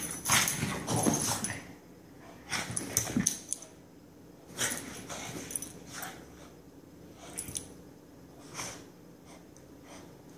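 A Shih Tzu and a Boston terrier play-fighting, making rough dog vocal and breathing noises in short bursts: busy for the first second and a half, then a burst every second or two.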